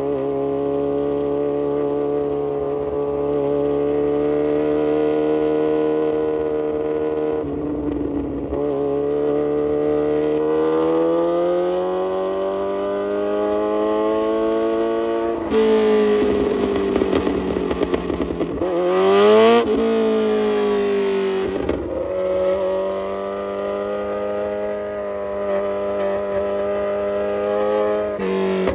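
Kawasaki Z900 inline-four engine through an aftermarket full exhaust, ridden on the road: it runs steadily at first, then climbs in pitch as it accelerates. About two-thirds in it gets loud and rough, rises fast and drops sharply, then settles back into a steady cruise.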